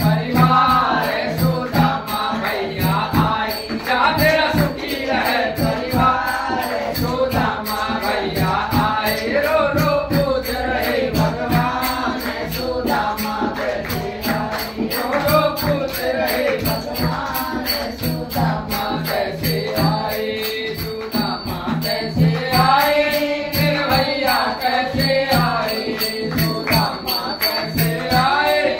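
A group of women singing a Hindi devotional bhajan in unison, with hand-clapping keeping a steady beat.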